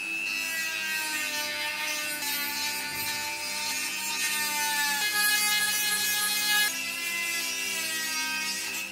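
Electric rotary tool with an abrasive sanding drum grinding rust off the inside of a rusty metal knife-handle ring: a high motor whine over a scratchy grinding hiss, the pitch stepping a few times as the drum bears on the metal.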